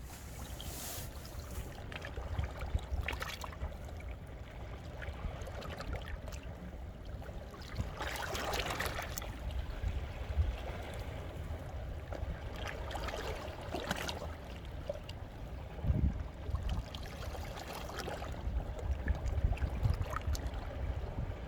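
Small sea waves washing in among shoreline rocks and draining back, with water trickling and gurgling between the stones; the wash swells twice, about eight and thirteen seconds in.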